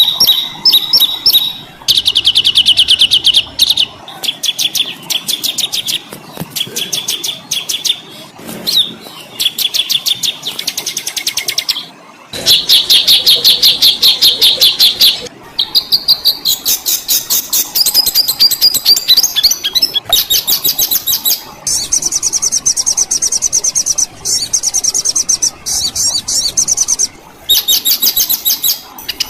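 Songbird recordings edited into a masteran (song-training) track: fast strings of harsh repeated notes and rolling trills, high-pitched and loud. Each segment cuts off abruptly into the next, with changes at about 2, 12, 16, 21 and 27 seconds in.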